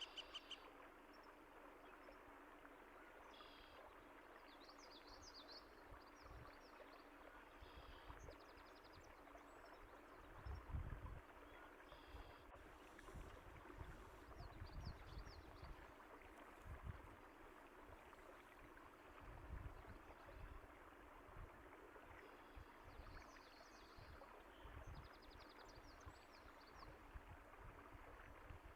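Faint, steady sound of a flowing stream, with short high bird chirps scattered through and a few low swells in the water sound.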